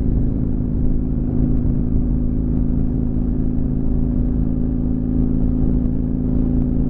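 Motorcycle engine running at a steady highway cruise, its low note unchanging, with wind and road noise rushing over the microphone.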